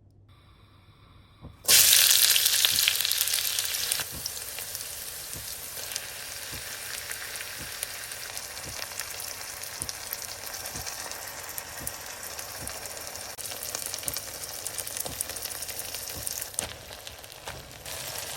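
Food frying in hot oil: a sudden loud burst of sizzling about two seconds in, as the food hits the hot pan. It eases over the next couple of seconds into a steady sizzle with fine crackling pops.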